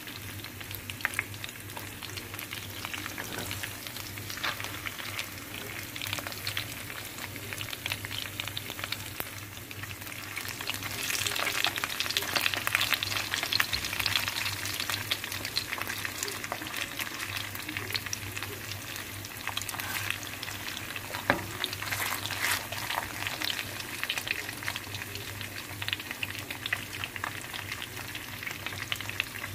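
Marinated steak frying in hot oil in a pan: a steady sizzle with scattered pops and crackles, louder for a few seconds about a third of the way in, over a steady low hum.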